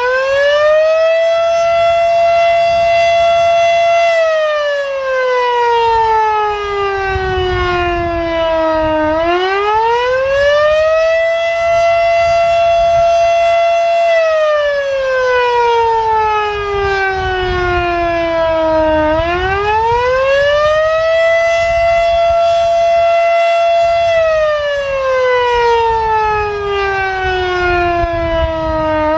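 Federal Sign & Signal Type 7 three-phase outdoor warning siren sounding the attack signal. Its pitch rises over about two seconds, holds briefly at the top, then slowly falls, and the cycle repeats about every ten seconds, three times.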